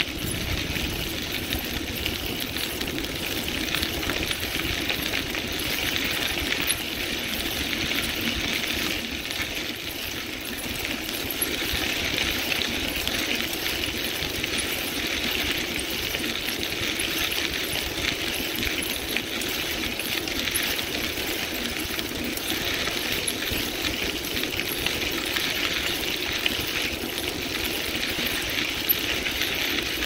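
Bicycle rolling at speed along a crushed-stone rail trail: steady tyre noise on the gravel with a dense, rapid rattling and clicking throughout.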